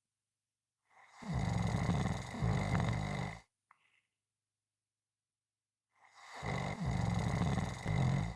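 Loud snoring: two long, rasping snores about five seconds apart, each with a brief catch in the middle. A faint short breath follows the first.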